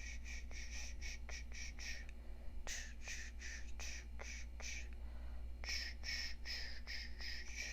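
Eyebrow razor scraping the brow hairs in quick, even strokes, about four a second. The strokes come in three runs, with short pauses about two seconds in and about five seconds in.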